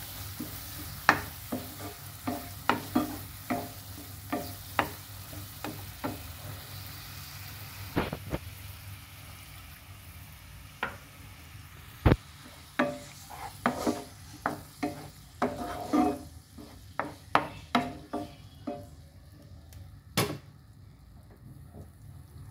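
Wooden spatula stirring a spice masala in a non-stick kadai, knocking and scraping against the pan at irregular intervals over a steady sizzle of frying onion and tomato in oil. The sizzle thins out near the end as the masala fries down.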